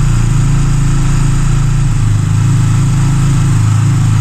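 Freshly rebuilt Benelli TNT25 250cc motorcycle engine running steadily, held at a constant engine speed. It runs without the strange internal noise it had before the rebuild.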